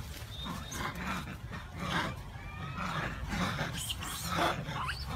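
Monkeys calling: a string of short, high squeals and screeches, some sliding up in pitch.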